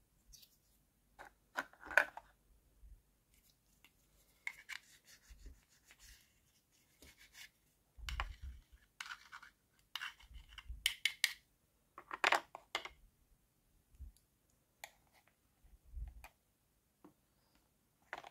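Small hard-plastic toy kitchen pieces being handled: scattered clicks, taps and scraping rubs of plastic on plastic, with a few soft low thumps.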